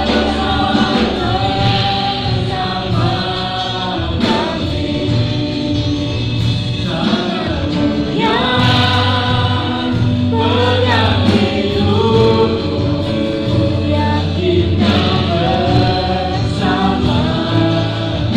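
Worship song in Indonesian, sung by a group of voices together like a choir over instrumental accompaniment with steady sustained bass notes.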